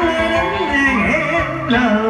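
Cải lương (Vietnamese reformed opera) singing with live instrumental accompaniment. The voice slides and wavers in pitch over the backing.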